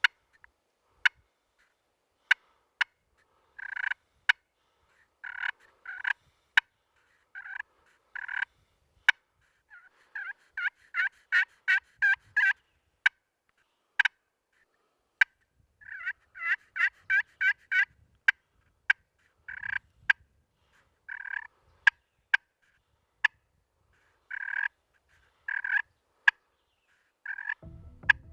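Hen turkey calling, made on a turkey call to bring hens in: runs of short yelps, with single sharp clucks between them and faster strings of yelps near the middle.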